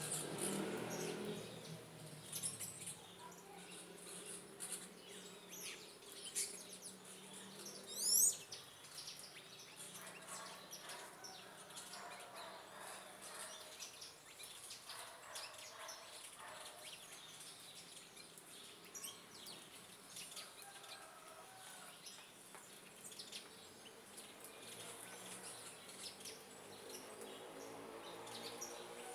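Small birds chirping and calling here and there, with one loud, high call of quick rising notes about eight seconds in.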